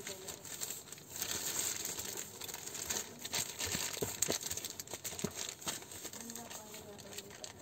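Black plastic bag crinkling and rustling as it is handled and pulled open, with many irregular sharp crackles.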